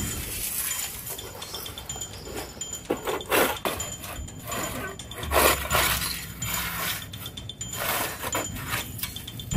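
Large woven bamboo drying tray scraping and knocking against tile and granite steps as it is dragged, in several short rough scrapes.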